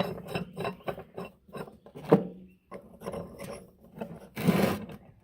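Metal parts of a bench vise being handled and fitted together: a run of short clicks and knocks, a sharp knock about two seconds in, and a longer rasping scrape near the end.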